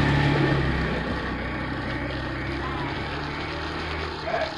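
A motor vehicle's engine running with a steady low hum, which fades out about three and a half seconds in.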